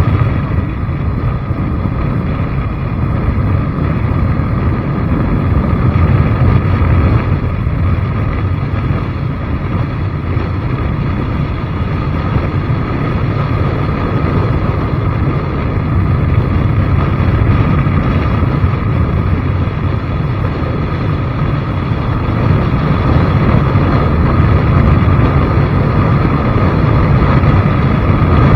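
Steady, loud rumble of wind buffeting the microphone while riding, mixed with a vehicle's running noise, with no breaks or changes in pace.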